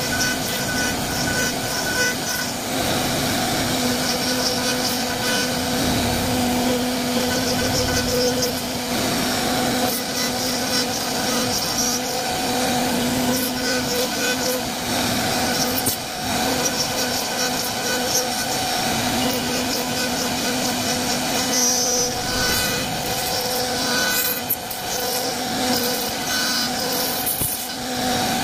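A CNC wood-carving router running steadily: a constant machine hum with a noisy cutting sound over it.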